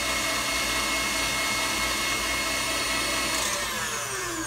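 KitchenAid stand mixer running steadily with a motor whine as its beater creams butter, shortening and sugar in a glass bowl. A little over three seconds in it is switched off, and the whine falls in pitch as the motor winds down.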